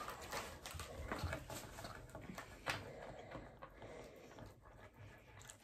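Knife sawing through a thick, crispy-crusted deep-dish pizza in its baking tray, with irregular scrapes and clicks of the blade against the tray, the sharpest a little under three seconds in.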